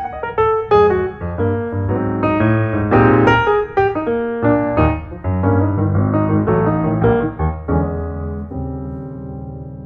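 Background solo piano music: a flowing run of notes and chords that settles onto a held chord, fading over the last couple of seconds.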